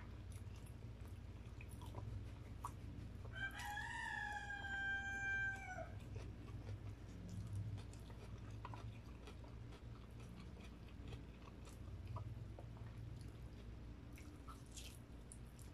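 A rooster crows once, a single call of about two and a half seconds a few seconds in. It sits over soft chewing and small clicks of eating from a metal tray.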